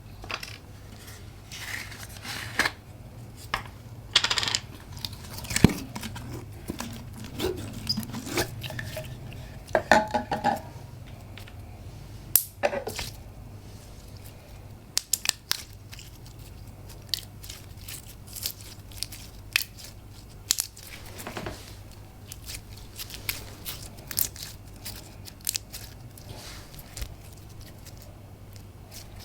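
Slime being squeezed, poked and stretched by hand: irregular sharp crackles and clicks with a few short squelchy squeaks, busiest in the first half, over a faint steady low hum.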